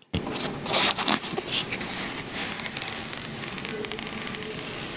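Protective plastic film being peeled off a new smartphone's screen by its pull tab: a continuous crackling with many fine clicks as the film comes away from the glass.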